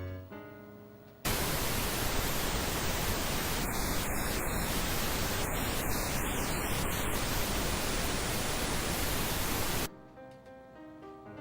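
Loud, even static hiss that cuts in suddenly about a second in and cuts off just as suddenly about a second and a half before the end.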